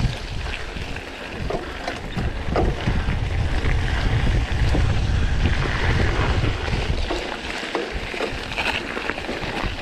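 Wind buffeting the microphone, a low, uneven rumble that swells in the middle of the stretch, with scattered faint crackles and rustles over it.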